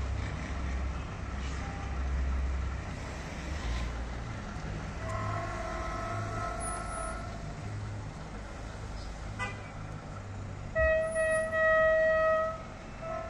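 TCDD DE 24000-class diesel locomotive horn sounding at a level crossing, first about five seconds in for about two seconds, then louder near the end for about a second and a half, over a low rumble that stops shortly before the second blast.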